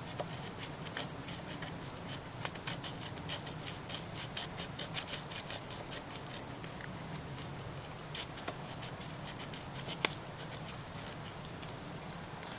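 Mora Classic No. 2 knife blade scraping the white side of birch bark, in quick runs of short rasping strokes. It is shaving the bark into fine, oily dust as tinder for a ferro rod.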